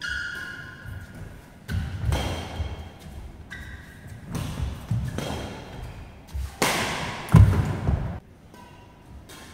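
Badminton rally: rackets strike the shuttlecock and players' feet thud on the court, with a few short squeaks, in a hall that echoes. The loudest hit-and-thud comes about seven seconds in, and then the play stops.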